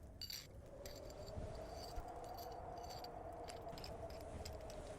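Fire crackling softly, with scattered small pops and clicks over a steady low drone, and a brief rustle about a quarter second in.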